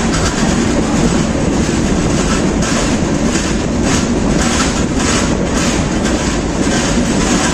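Passenger train running on the line: a steady loud rush of wheels and coach noise with a rapid, irregular clatter of wheels over rail joints.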